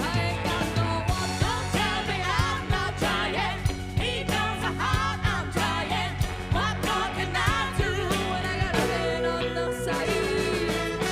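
Live funk and soul band playing: steady drums and bass under a lead line that bends up and down, ending on a long held note near the end.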